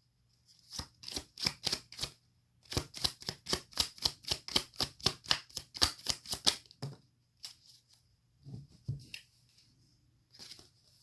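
Tarot cards being handled and shuffled by hand: quick, even card slaps, a few at first and then a long run of about four or five a second, followed by a few softer knocks as the handling stops.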